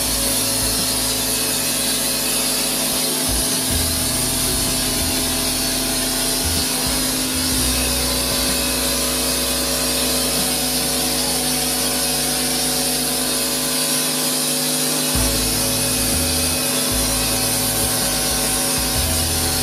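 Pressure washer running steadily, its motor and pump droning under the hiss of the foam-cannon nozzle spraying a fine mist.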